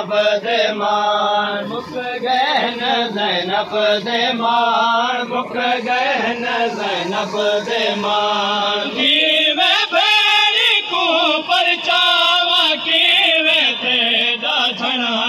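Male voices chanting a noha, a Shia mourning lament, in a continuous melodic chant with no instruments.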